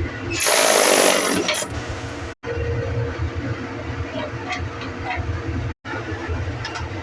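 Air duct cleaning equipment running: a loud rush of air for about a second near the start, then a steady low machine rumble with a hum. The sound cuts out abruptly twice.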